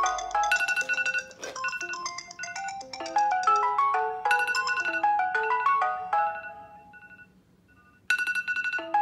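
Mobile phone ringtone playing a melody of short notes, fading out about six seconds in and starting over about eight seconds in as the ringtone loops.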